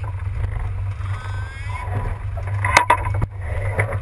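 Sportfishing boat's engine running with a steady low drone. A couple of sharp knocks come near the end.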